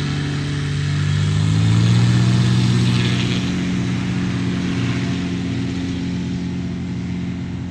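Kit Fox light aircraft's engine and propeller at takeoff power during its roll: a steady drone whose pitch rises a little in the first two seconds and is loudest about two seconds in, then slowly fades as the plane moves away.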